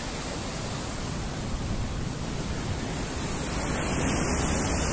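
Surf breaking and washing onto a rocky shore: a steady rush of waves.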